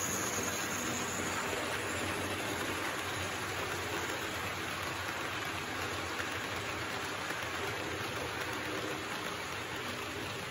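H0-scale model freight train rolling along its track: a steady, even rushing noise of many small metal wheels on the rails, slowly growing fainter as the train draws away.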